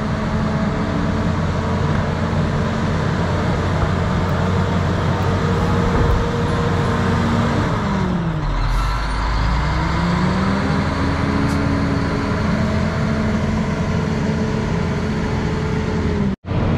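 Wheel loader's diesel engine running hard, its pitch dropping sharply about eight seconds in as the bucket drives into the soil pile, then climbing back. The sound cuts out for a moment near the end.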